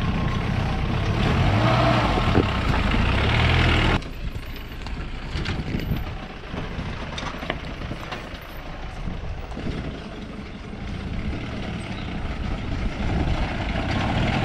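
Modified Mahindra Bolero 4x4's engine running under load as it sets off up an off-road climb. The engine sound drops abruptly about four seconds in, with a few knocks, and builds again near the end.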